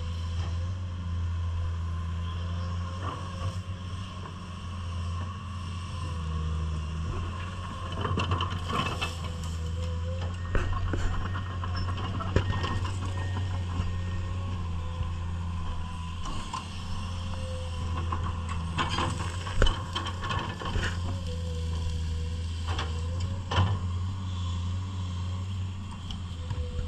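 Komatsu PC210 hydraulic excavator's diesel engine running steadily under varying load, with a thin steady whine and scattered knocks and rattles from the machine at work.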